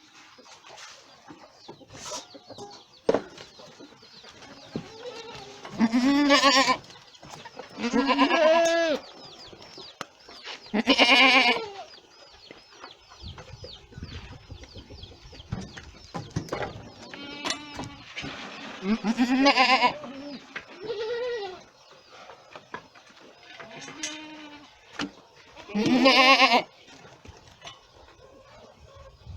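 Boer goats bleating: a series of loud, wavering calls a few seconds apart, with a few soft clicks and knocks between them.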